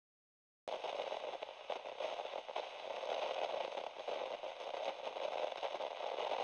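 Dense crackling static that starts abruptly under a second in and carries on steadily.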